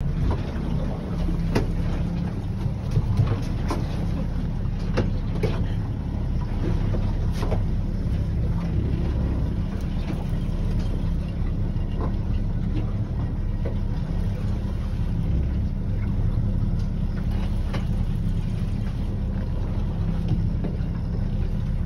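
Fishing boat's engine running steadily with a low hum, with a few short knocks here and there.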